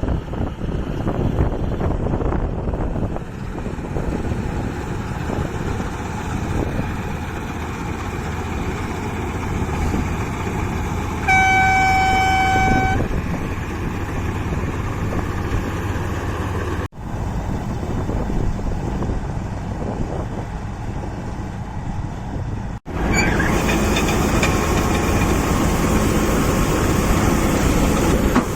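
Farm machinery engine running steadily, with one horn blast of about a second and a half about eleven seconds in. The sound breaks off abruptly twice.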